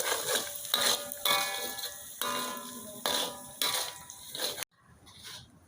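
Chilli sambal sizzling in hot oil as a metal spatula stirs it, the spatula clanking against the pan four times with a short ringing after each strike. The sound cuts off abruptly near the end.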